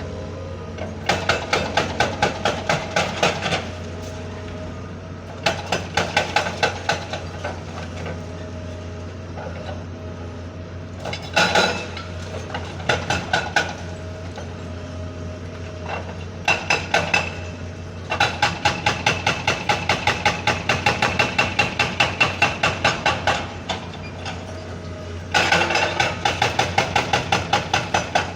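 Hydraulic breaker on a backhoe hammering at concrete in repeated bursts of rapid blows, about five a second, over the steady hum of the diesel engine. The longest burst, about six seconds, comes past the middle.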